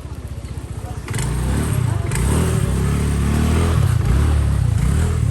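A motor vehicle's engine running, with a low, pulsing sound that grows much louder about a second in and stays loud.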